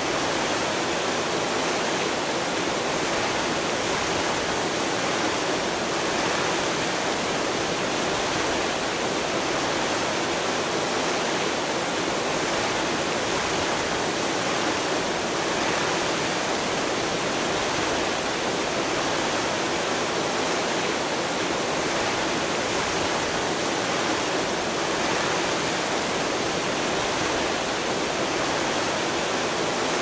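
Fountain water splashing: a steady, even rush of falling water that stays the same throughout, mostly in the middle and high range with little low rumble.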